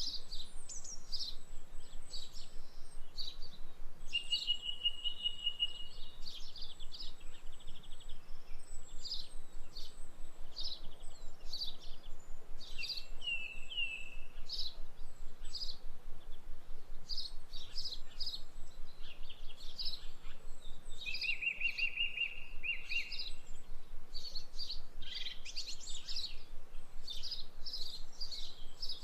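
Songbirds chirping and calling continuously, many short high chirps with a few longer trills, over a faint steady hiss.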